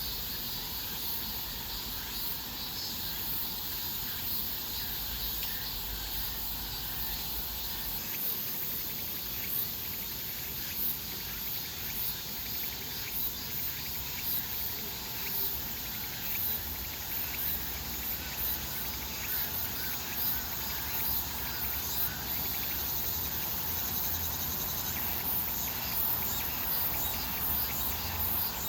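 Steady high-pitched insect buzzing, with many short ticks and clicks scattered through it. A low rumble runs under it for the first eight seconds or so, then stops.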